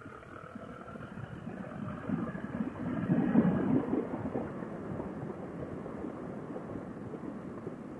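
Motorcycle riding noise, engine and wind, heard muffled through a helmet intercom microphone; it swells to its loudest about three seconds in, then settles back to a steady rush.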